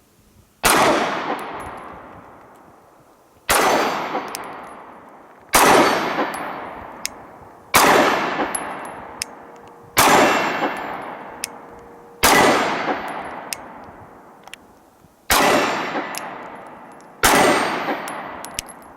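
Glock 26 Gen 4 9mm pistol fired in slow, aimed single shots: eight shots about two to three seconds apart, each followed by a long echoing decay.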